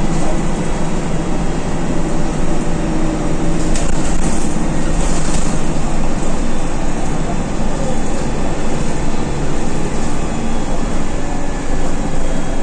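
Diesel engine of an Alexander Dennis Dart single-deck bus running steadily under way, heard from inside the passenger saloon, with a brief hiss about four seconds in.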